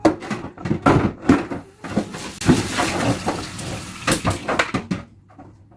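Irregular knocks, clatters and rustling as frozen food packages and containers are handled and moved around while a freezer is emptied, quieting near the end.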